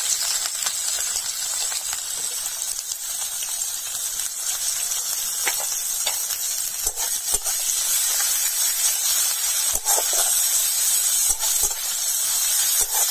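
Sliced onions sizzling in hot mustard oil in a metal kadai, a steady hiss that starts as they hit the oil. Now and then a metal spatula clicks against the pan.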